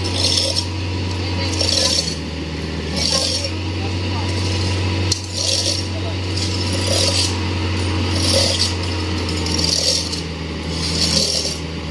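Mini excavator's diesel engine running steadily, with a short metallic scraping, clinking sound repeating about every second and a half.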